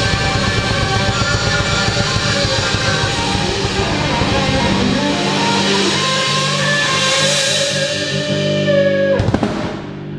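Rock band playing live, with drum kit and electric guitar to the fore. About nine seconds in the full band drops away and the sound thins out.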